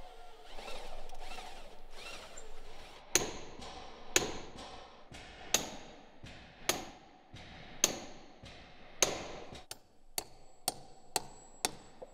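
A hammer striking an iron bolt that fastens a forged iron fitting to a wooden hull. There are six hard, ringing blows about a second apart, then a quicker run of lighter strikes near the end. A power drill runs briefly at the start.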